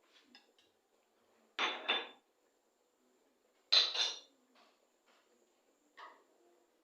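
Pot and cooking utensils clattering in short knocks: a pair of knocks about one and a half seconds in, another pair about two seconds later, and a faint one near the end.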